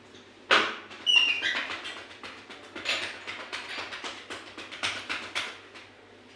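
Chest percussion: cupped hands clapping rhythmically on a patient's chest or back, about four slaps a second, to loosen sputum. There is a brief high squeak about a second in.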